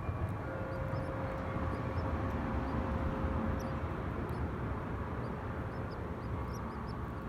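A wind chime's long ringing tones over a steady rumble of wind, with many short, faint, high bird chirps scattered throughout.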